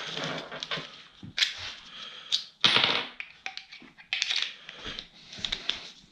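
Small metal parts clinking and rattling as someone rummages for a larger hose clamp, with irregular sharp clicks and a few louder knocks.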